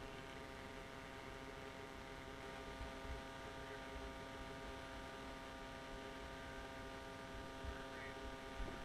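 An engine idling steadily, heard as a faint, even hum that does not change in pitch.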